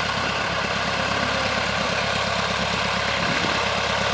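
Single-engine Cub bush plane's propeller engine running steadily at low taxiing power.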